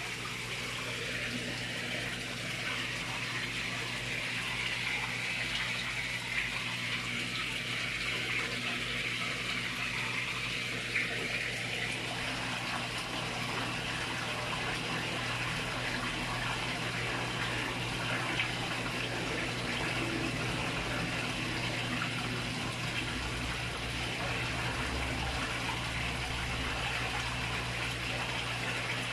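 Steady rush of moving water in a fish pond from its filtration and circulation, with a low steady hum beneath it.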